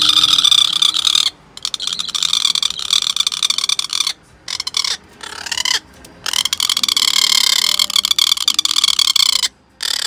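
Great barbet giving long, harsh rasping calls in several bouts with short breaks between them, one rising near the middle; an agitated bird scolding a person.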